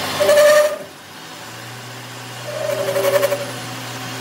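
Metal lathe turning a steel pipe, with the cutting tool biting into the spinning workpiece in two loud spells of cutting noise with a whine in it: one just at the start, the other about halfway through. Under them runs the machine's steady hum.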